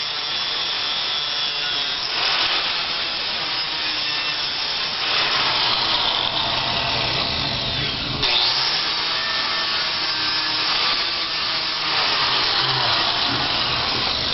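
Handheld power grinder running against steel, polishing a spot to bare metal so the welding current can make contact. It runs steadily, stops briefly about eight seconds in and starts again, then cuts off near the end.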